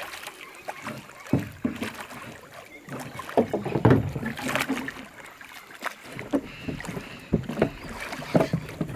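Hooked red-tailed catfish thrashing at the surface beside the boat, with irregular splashes and slaps of water that grow busier about halfway through.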